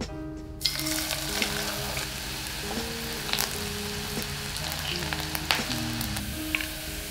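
Sliced garlic frying in hot oil in a saucepan: a sizzle that starts suddenly a little after half a second in and keeps going, with scattered pops and the scrape of a metal spatula stirring the slices.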